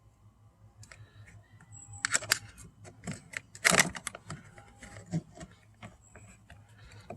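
Light plastic clicks and taps from a car's interior door handle and its trim being handled and worked loose, with the loudest clack about three and a half seconds in.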